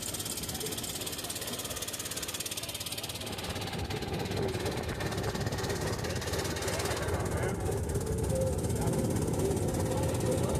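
Boat engine running with a rapid, even beat, growing louder about four seconds in.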